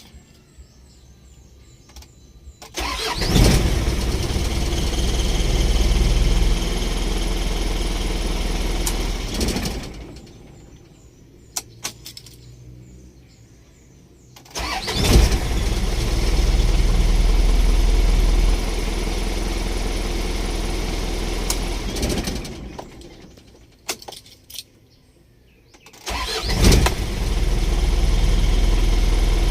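Isuzu Elf truck engine started three times, catching at once each time and running steadily. The first two runs are switched off after about seven seconds, and short clicks come before the restarts. It starts promptly now that a loose, dirty battery cable terminal has been replaced.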